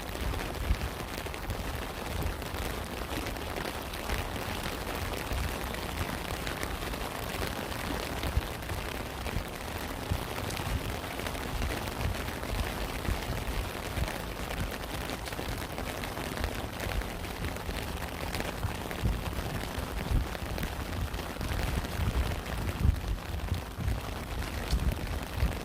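Steady rain falling, an even hiss with a low rumble underneath and scattered louder drops or taps, one sharper peak near the end.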